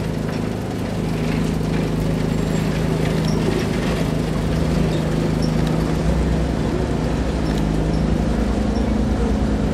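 Diesel engine of a road-rail maintenance truck running steadily as it rolls past at low speed on tram tracks, its pitch shifting slightly partway through as a vintage tram follows behind.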